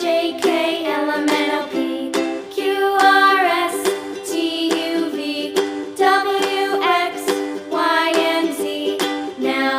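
Cheerful background music for children: a melody with a voice singing over strummed ukulele chords.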